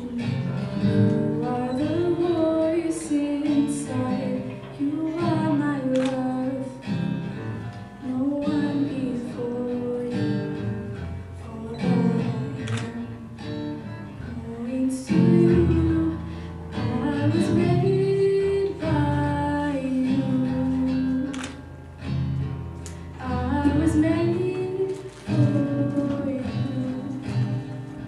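A woman singing a slow worship song, accompanied by a strummed acoustic guitar. A deep, held bass note comes in about halfway through and drops out a few seconds before the end.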